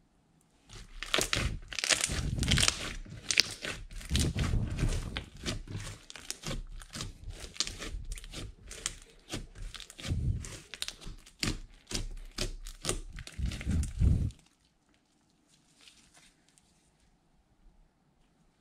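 Thick slime being kneaded, folded and pressed by hand: a dense run of sticky, irregular crackling that stops about fourteen seconds in, leaving only faint squishes.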